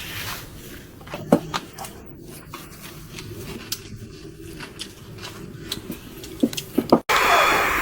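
Scattered small clicks and rustles with a few sharper knocks, like hands handling food or kitchen things; the sound cuts off abruptly about seven seconds in.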